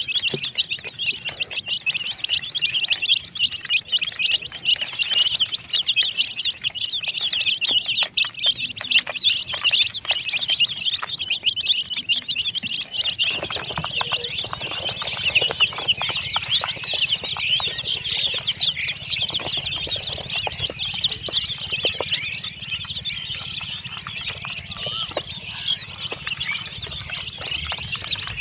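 A flock of baby chicks peeping nonstop, many high chirps overlapping each other throughout.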